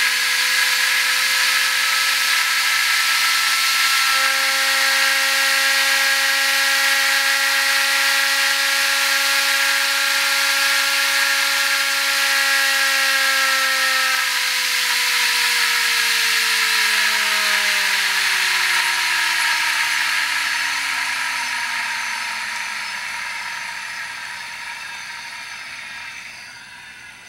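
Home-made belt drive running at high speed: a 120 V DC motor spins an old VCR head drum up through pulleys, giving a steady whine of several tones over an airy hiss. About halfway through the whine slides down in pitch and fades as the drum winds down.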